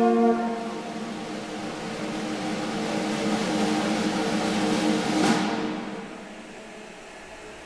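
Symphony orchestra in a contemporary just-intonation piece: a loud held chord breaks off, then a noisy wash of sound with held tones beneath it swells for several seconds. It peaks in a bright, crash-like flare about five seconds in and dies away.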